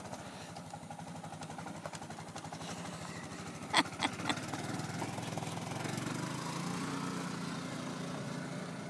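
A 4-wheeler (ATV) engine running steadily, its note growing louder and rising a little about halfway through as it pulls away. Three short, sharp sounds cut in about four seconds in.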